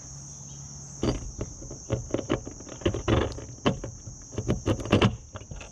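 Crickets chirring steadily throughout. From about a second in comes a string of irregular knocks and clicks as hands work a bolt up through a hole in the camper's aluminum roof from underneath.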